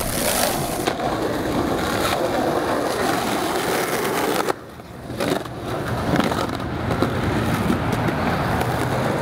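Skateboard wheels rolling over rough asphalt, a steady gritty rumble. It breaks off briefly about halfway through, a single knock follows, and then it picks up again.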